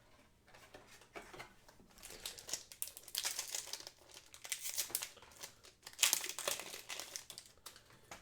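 Foil booster-pack wrapper being torn open and crinkled by hand, a crackly rustling that starts about two seconds in and comes in uneven bursts until near the end.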